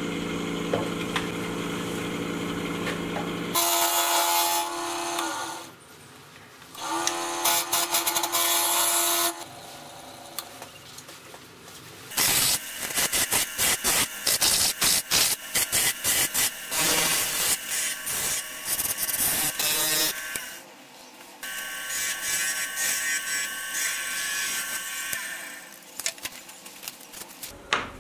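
Wood lathe spinning a small wooden blank, its motor humming steadily, then a hand-held turning tool cutting the spinning wood in several passes: two short cuts, a long cut full of rapid ticks as the tool chatters against the wood, and another steady cut near the end.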